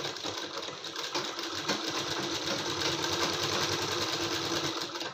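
Sewing machine running steadily, stitching a folded neckline strip onto a blouse: a rapid, even clatter of stitches over a steady motor hum.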